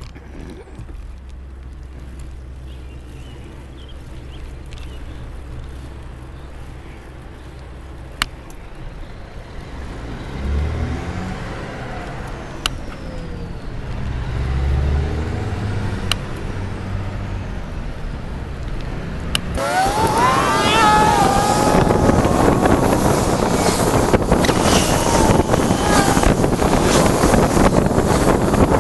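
Road noise heard from a moving bicycle, with passing traffic. About two-thirds of the way through it suddenly gets much louder, with heavy wind noise on the microphone.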